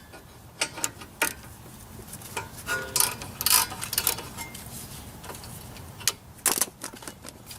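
Irregular light metallic clicks and clinks from handling a removed brake caliper and the hooks of a bungee cord while hanging the caliper up, the loudest in the middle and again near the end.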